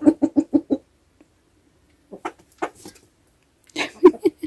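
Domestic hens clucking: a quick run of about half a dozen clucks in the first second, then a few scattered clucks in the second half.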